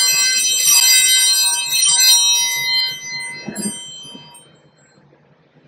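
Altar (sanctus) bells rung in a few shakes, a bright cluster of high ringing tones that fades away about four seconds in. They mark the elevation of the chalice after the words of institution.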